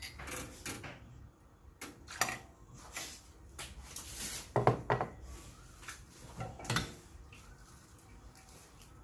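Espresso gear being handled on a counter: a run of separate clinks, clacks and knocks of metal and ceramic parts being picked up and set down, loudest in a cluster a little before the middle.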